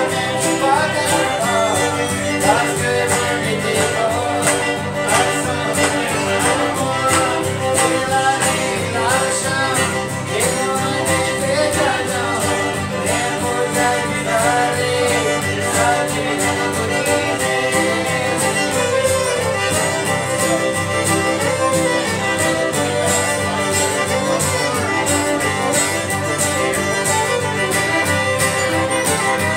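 Two fiddles and an acoustic guitar playing a tune together, the guitar strumming a steady rhythm under the bowed fiddle melody.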